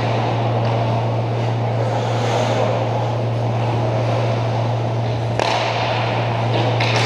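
Indoor ice hockey play: a steady low hum under the general noise of skates on ice, with a sharp knock about five seconds in and another near the end from sticks and puck.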